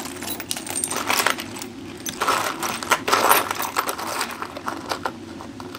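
Loose metal nuts, bolts and washers clinking and rattling as a hand rummages through a box of used hardware, searching for one fastener. Irregular clatter throughout, with a few louder clusters of clinks.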